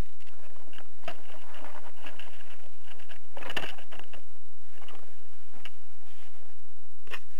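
Close handling noise from the crashed foam RC jet as hands work its battery wires: scattered rustles and clicks, the loudest cluster about three and a half seconds in and a sharp click near the end. A steady low hum runs underneath.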